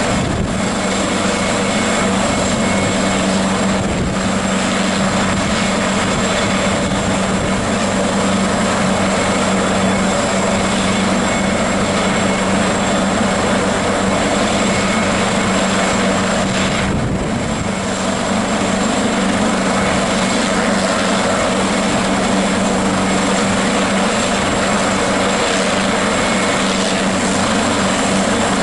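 AgustaWestland AW139 helicopter running on the ground before lift-off, its twin turboshaft engines and main rotor turning at a steady speed. Steady high whistling tones from the turbines sit over the rotor and engine noise, with no change in pitch.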